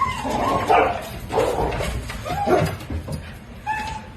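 A dog making several short, pitched calls with bending pitch.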